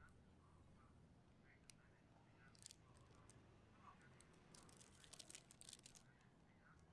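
Faint crinkling of a paper pastry wrapper being handled around a bun: a few scattered crackles, then a denser run of them a little past the middle.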